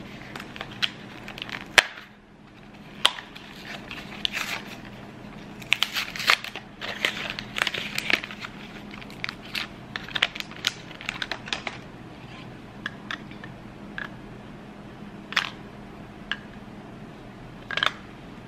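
AA battery blister pack torn open by hand, its cardboard backing tearing and plastic crinkling in many sharp crackles, densest about six to eight seconds in, then scattered clicks as the batteries are handled. A faint steady hum runs underneath.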